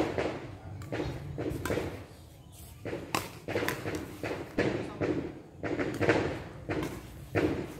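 Doubles badminton rally: rackets hitting a shuttlecock back and forth, sharp hits roughly once a second, with players' feet on the court.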